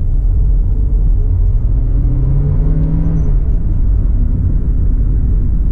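Car engine and road rumble heard from inside the cabin while driving. The engine note rises for a couple of seconds as the car accelerates, then drops away a little past the three-second mark.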